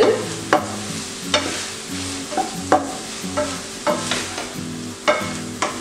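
Wooden slotted spatula stirring saucy chilli chicken and capsicum in a nonstick frying pan, scraping and knocking against the pan about once a second, over a soft sizzle from the pan.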